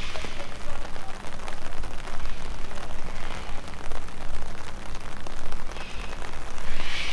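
Rain falling and pattering on surfaces, an even hiss dotted with many small drop ticks, with a low rumble underneath. A brief louder hiss comes near the end.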